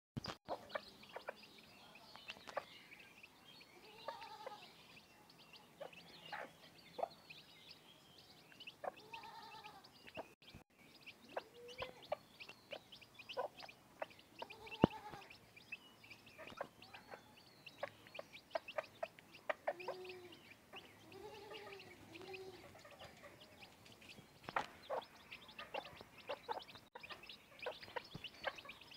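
Mother hen clucking in low calls every few seconds, with a run of three close together about two-thirds of the way through, over a brood of chicks peeping in short, high chirps throughout.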